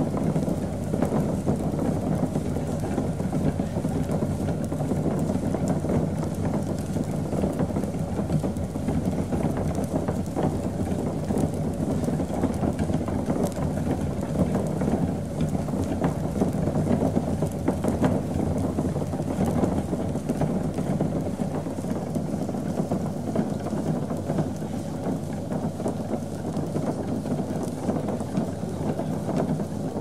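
Brewery ambience: brewing equipment gives a steady low hum under a dense, even rushing noise. The deepest part of the hum eases off a little past the middle.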